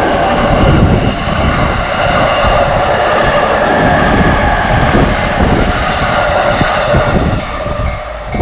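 JR Yokosuka Line electric train running through a level crossing, its wheels rumbling and clattering, with the crossing's warning bell ringing as steady tones over it. The train noise drops off near the end.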